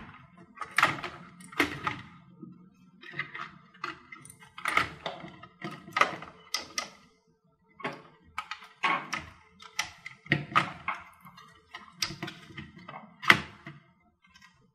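Irregular light clicks, taps and knocks of hands handling the parts of an opened HP Pavilion DV6 laptop, fitting the motherboard and a cable connector back into the chassis.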